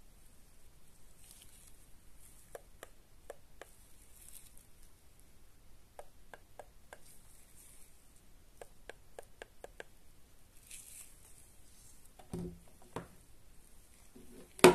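Gloved hands handling a plastic Philips Lumea IPL handset, its attachment and its power cord: a run of small plastic clicks with faint glove rustling, then a few soft knocks on the table, the loudest right at the end.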